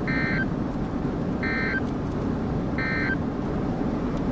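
Emergency Alert System end-of-message (EOM) data bursts: three short, identical screeching digital bursts about a second apart, marking the end of the alert. They sound over a steady low rumble of background noise.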